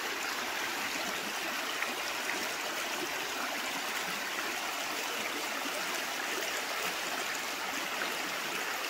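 Shallow creek running steadily over a gravel and cobble bed.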